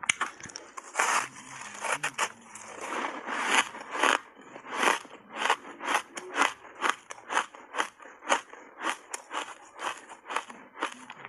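Ice coated in thick matcha powder being bitten and chewed: heavy crunching as a big bite breaks off in the first few seconds, then steady crunching at about two to three crunches a second as the mouthful is chewed.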